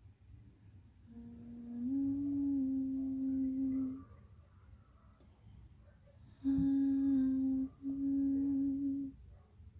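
A person humming slowly with closed lips: a long held note from about a second in that steps up slightly and holds until about four seconds, then after a pause two more held notes near the end, split by a short break.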